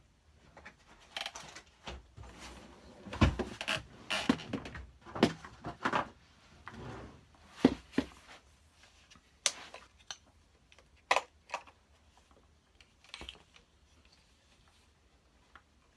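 Irregular plastic clicks, knocks and rustling of hands handling the metal detector while swapping its batteries, busiest in the first half and sparser later.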